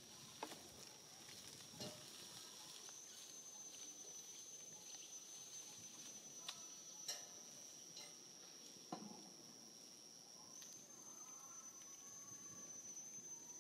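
Near silence: faint outdoor ambience with a steady high-pitched drone and a few scattered soft clicks.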